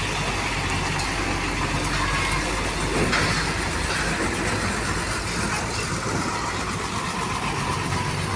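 Large cargo trucks' diesel engines running as the trucks pass close by, a steady engine drone mixed with the noise of tyres and traffic.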